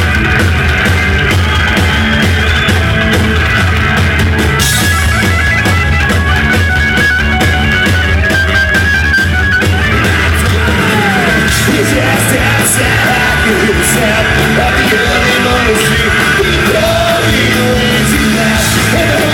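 Ska-punk band playing loud and steady, with electric guitar, bass and drums.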